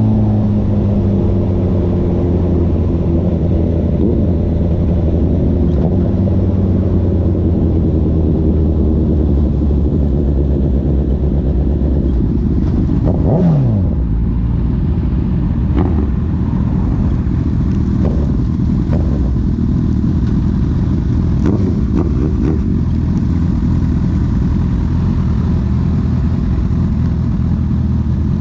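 Honda CB1000R's inline-four engine breathing through an aftermarket CS Racing full exhaust system while the bike is ridden. The engine note eases slowly lower over the first several seconds, drops quickly in pitch about halfway through, then runs on as a steady low drone.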